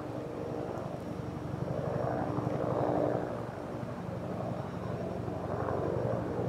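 Bell UH-1 Huey helicopter flying over, a steady rotor and engine sound that swells about three seconds in, eases off, then swells again near the end.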